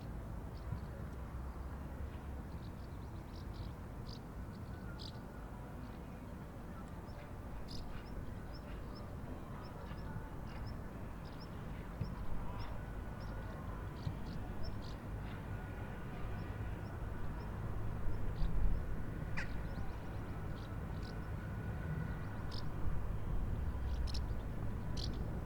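Outdoor park ambience: small birds chirping in short, scattered high calls over a steady low rumble.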